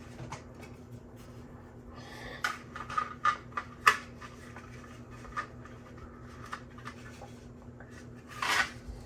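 Hard 3D-printed plastic helmet pieces being handled and fitted together: a cluster of light clicks and knocks a few seconds in, one of them sharp, and a brief rustle of plastic rubbing near the end.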